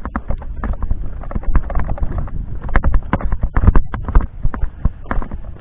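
A rapid, irregular series of sharp knocks and clicks over a low rumble, several a second, loudest a little past the middle.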